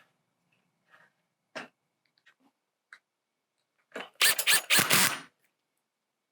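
Greenhouse side vent being slid along the frame's curled channel: a few light clicks, then about four seconds in a short burst of loud clattering and knocking as the panel's edge moves in the track.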